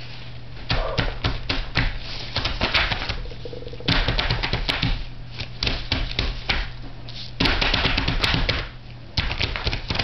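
A child's hands slapping and dabbing at paint on paper, heard as bursts of rapid, irregular taps (about four clusters), over a steady low hum.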